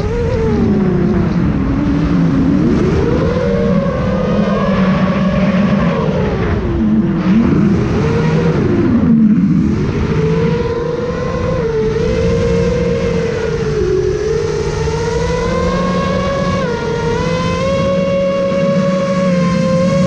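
Custom-built FPV quadcopter's brushless motors whining, the pitch swooping up and down with the throttle for the first half, then holding steadier and slowly rising.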